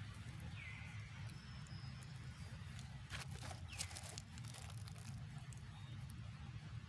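Faint outdoor ambience with a steady low rumble, two short high chirps that glide down in pitch, and a few clicks about three seconds in.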